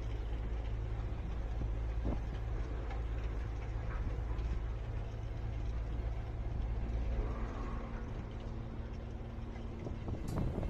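Road roller's diesel engine running with a steady low drone. A sharp click comes near the end.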